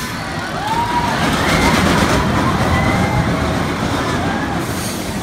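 Roller coaster train rumbling along its steel track as it passes, swelling about a second in and fading near the end, with riders screaming in short wavering cries over it.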